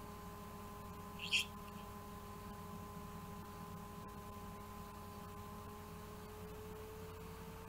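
Faint steady hum made of several constant tones, with one brief high-pitched squeak about a second in.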